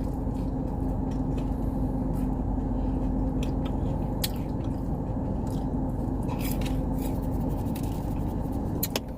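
Someone chewing and biting into fried chicken nuggets, making scattered small clicks and crunches, over the steady hum of a car cabin with the engine or fan running.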